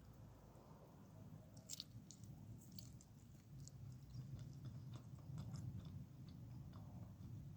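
Quiet, close-miked chewing and biting of food, a low muffled rumble of mastication with scattered small sharp mouth clicks, most distinct about two and three seconds in.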